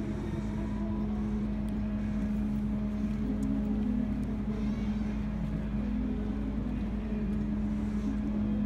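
The cruise ship Michigan's engines running steadily under way, heard from its deck as an even drone with a constant low hum.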